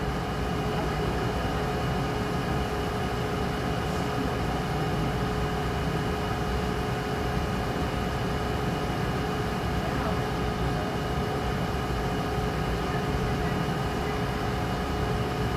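A steady hum made of several held tones over a low rumble, unchanging throughout.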